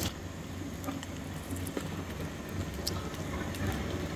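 Tilapia pieces frying in a pan of oil over a gas burner: faint sizzling over a steady low rumble, with a couple of light metal clicks as the slotted spoon lifts fried pieces out.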